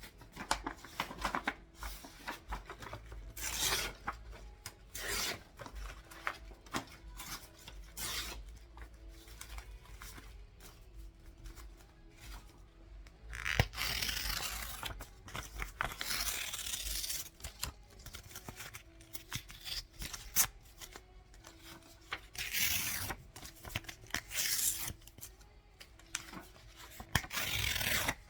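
Sheets of paper being handled and sorted: repeated rustling, sliding and crinkling in short bursts, with small clicks and taps between them.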